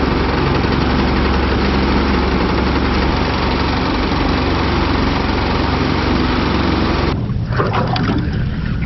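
Small boat's outboard motor running underway, with a steady rush of wind and water over the hull. About seven seconds in the rushing noise cuts off and only a low engine idle remains.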